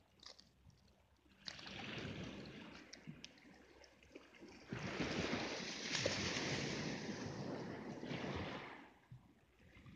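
Sea waves washing over a pebble beach: a hiss that swells and fades twice, the second swell, from about five to nine seconds in, the louder.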